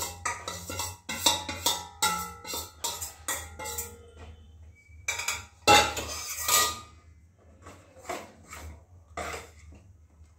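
Steel spatula and steel bowl clinking and scraping against a kadhai as powder is tipped in and stirred, the knocks followed by short metallic ringing. The knocks come thick in the first few seconds, stop briefly, return loudest in a cluster around the middle, and go on more softly near the end.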